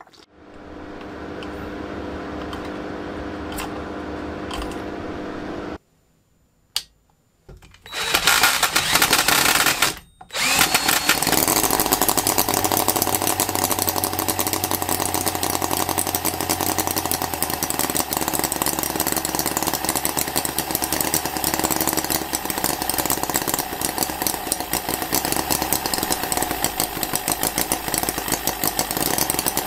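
Miniature Holt H75 four-cylinder model engine running steadily, a dense, rapid mechanical chatter that starts about ten seconds in after a short loud stretch.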